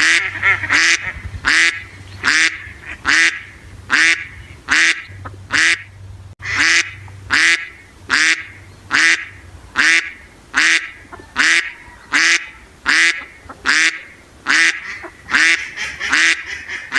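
Duck quacking over and over in short, evenly spaced quacks, about three every two seconds.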